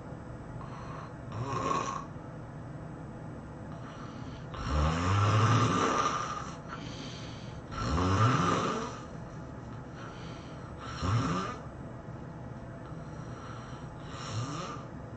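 High-intensity snoring: five snores roughly three seconds apart, each rising in pitch, the two in the middle the loudest and longest, with fainter breaths between them.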